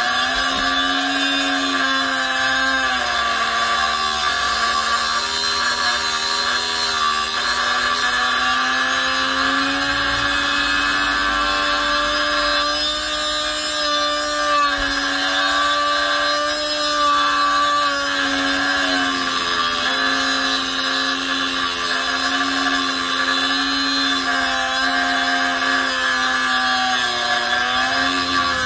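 Harbor Freight Chicago Electric 3-inch electric cutoff tool running under load, its thin Warrior abrasive wheel grinding through a 3/4-inch grade 8 steel bolt. It makes a continuous motor whine over the grit of wheel on steel, and the pitch sags and recovers as pressure on the cut changes.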